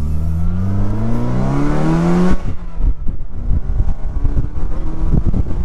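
A Saturn Sky's 2.4-litre Ecotec four-cylinder engine accelerating hard at full throttle, its pitch rising steadily for about two seconds before dropping away sharply. After that, wind buffets the microphone in the open roadster.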